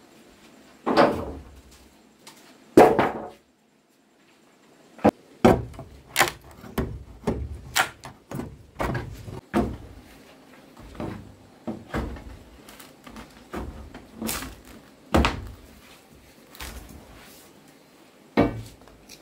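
Irregular knocks and thuds of wood being worked in house building, some sharp and some dull, coming quickly for a stretch in the middle.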